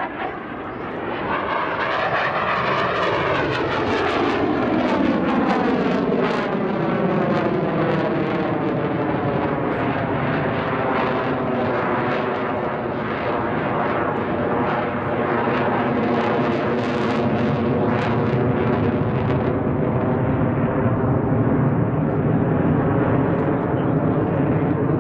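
Saab JAS-39C Gripen fighter jet flying a display, its single Volvo RM12 afterburning turbofan making loud, continuous jet noise. About two seconds in the sound sweeps up and then down in pitch as the jet goes by.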